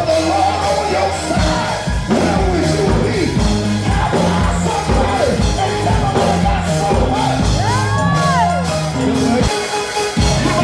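Live church gospel music with a steady beat and held bass notes, with voices singing and shouting over it. One high rising-and-falling cry comes about eight seconds in.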